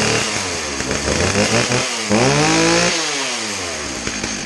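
Stihl two-stroke chainsaw running after a pull start. Its pitch falls in the first second; the throttle is squeezed about two seconds in, the revs rise sharply and hold for under a second, then drop back toward idle.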